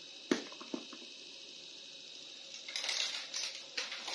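Hollow plastic action figure set down on a tabletop with a sharp knock, then a lighter click just after. About two and a half seconds in comes a spell of rustling and clattering as the plastic figures are handled.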